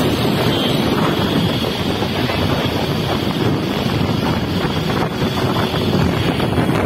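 Steady wind rush buffeting the microphone of a moving motor scooter, with vehicle and road noise underneath.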